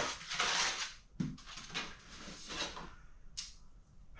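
White paper packing rustling and crinkling in several short bursts as black steel shelf uprights are unwrapped and lifted from their box, with a dull knock about a second in.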